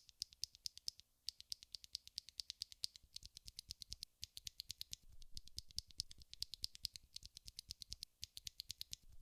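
Tactile mechanical keyboard switches of the Holy Panda type being pressed and released in quick runs: rapid fairly faint clacks, several a second, with short pauses between runs.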